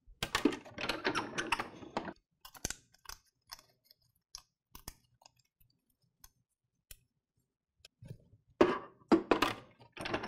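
Die-cut cardstock being handled: rustling and crackling as the cut pieces are worked loose, then scattered light clicks and taps. Near the end, a few louder sharp knocks.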